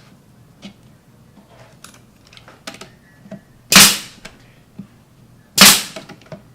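Brad nailer firing twice into the cabinet's plywood, sharp loud shots about two seconds apart, each trailing off in a short hiss. Before them, a few light taps and clicks as the panels are lined up.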